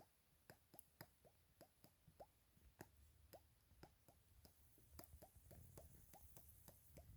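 Faint, irregular plops, a few a second, each a short blip falling in pitch, over a soft low rumble.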